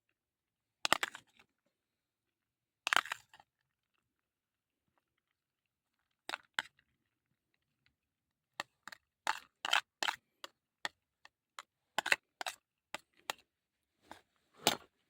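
A series of sharp cracks and knocks: two loud ones about two seconds apart, a pause, then a quick run of about a dozen, two or three a second.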